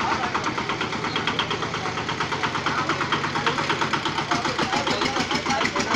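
The single-cylinder diesel engine of a motorized cargo cart (nosimon) chugging with a rapid, even beat while the cart drives along.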